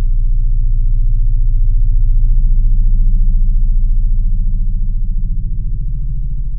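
Loud low hum: a few deep steady tones with a rapid flutter, and nothing in the higher range.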